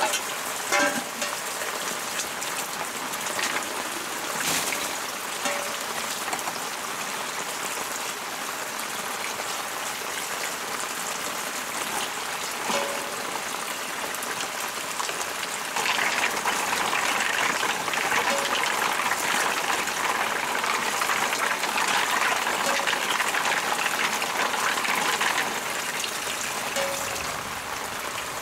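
Water running from a hose and splashing into a plastic basin of shells as they are washed, steady throughout and fuller and louder for about ten seconds from halfway through. A few light knocks near the start.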